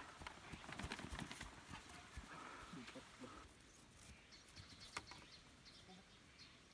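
A dog's paws knocking and clattering on the boards of an agility dog walk as the border collie runs across it, a quick uneven run of footfalls. It fades out a little over three seconds in, leaving only a few faint clicks.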